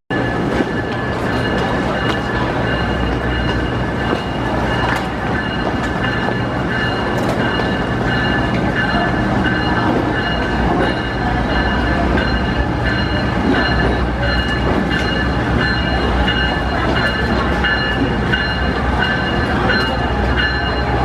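Amtrak train equipment at a station platform: a steady low rumble with several high whining tones held steady throughout.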